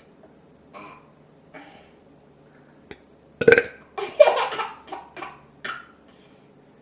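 A person burps once, loudly, about halfway through, followed by a couple of seconds of laughter in short bursts.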